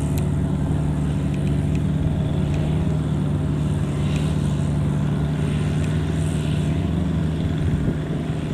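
Kubota DC70 combine harvester's diesel engine running steadily at a constant speed, a loud, even low hum.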